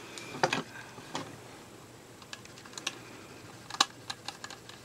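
Irregular light clicks and taps of small plastic parts and a tiny flathead screwdriver being handled while the motor wires are secured in the screw terminal block of an e-spinner's plastic housing. A few sharper clicks come about half a second in and near four seconds in.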